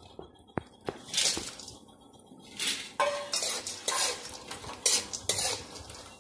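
A metal spoon stirs and scrapes black cardamom pods roasting in oil in a kadhai, in a run of scraping strokes that come faster from about halfway through.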